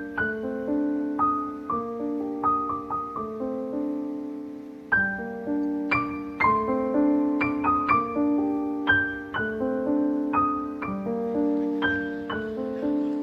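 Background music: soft solo piano playing a gentle, flowing melody of struck notes that ring and fade.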